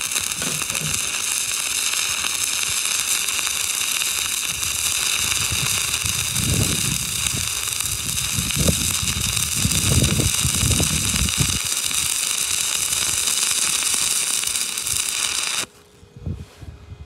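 Stick-welding arc of a 7014 electrode running a horizontal bead on steel: a steady crackling hiss with sputtering pops that cuts off suddenly about fifteen and a half seconds in as the arc is broken at the end of the bead.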